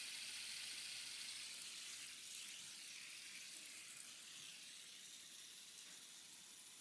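Fidget spinner spinning freely, its ball bearings making a steady high whir that slowly fades as it runs down.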